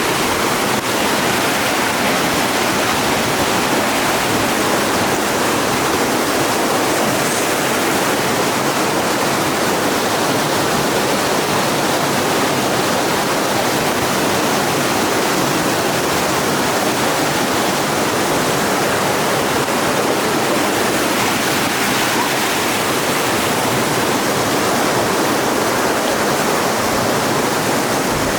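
Heavy rain pouring down, with floodwater running: a loud, steady, even rush that does not let up.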